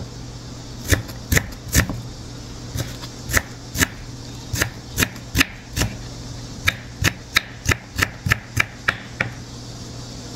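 Kitchen knife chopping an onion on a wooden cutting board: sharp knocks of the blade against the board, about two to three a second in short runs with brief pauses.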